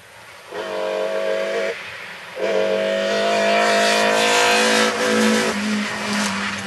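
Rally car engine at full throttle: a brief burst held at high revs, a short lift, then a longer hard pull with slowly rising pitch as a BMW E30 rally car passes close, dropping in pitch about five seconds in as it shifts or lifts.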